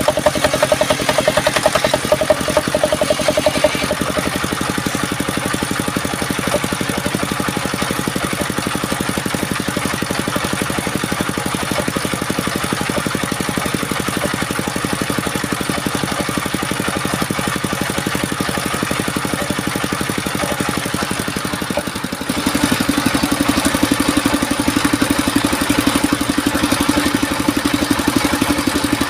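A small engine running steadily with a rapid even pulse. Its tone shifts slightly a few seconds in, then turns louder and lower from about three-quarters of the way through.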